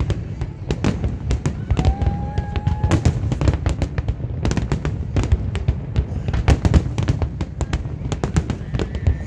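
Fireworks display at full barrage: many aerial shells bursting in rapid, overlapping bangs with crackling, over a continuous low rumble. A brief steady tone sounds about two seconds in.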